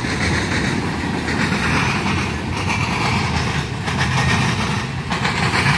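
Freight train cars rolling past on the rails: a steady rumble of wheels on track, with a few sharp clacks.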